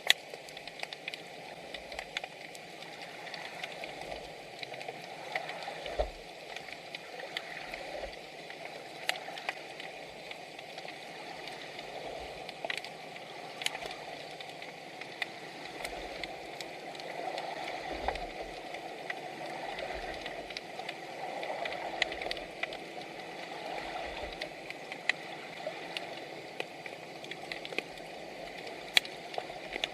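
Underwater ambience picked up by a submerged camera: a steady rushing water noise with sharp clicks scattered throughout.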